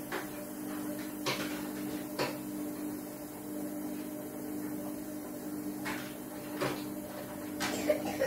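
A steady low hum runs throughout, with a handful of short, sharp clicks and knocks scattered across it, the loudest a pair near the end.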